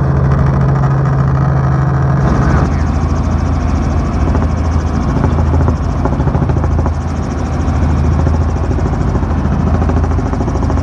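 Helicopter in flight heard from inside the cabin: the engine and rotor running in a loud, steady drone with a fast pulsing beat. The tone shifts about two seconds in, when more hiss comes in.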